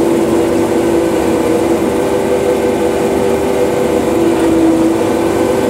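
John Deere 9560 combine running while harvesting, heard from inside the cab: a loud, steady drone of engine and threshing machinery with a constant hum that does not change pitch.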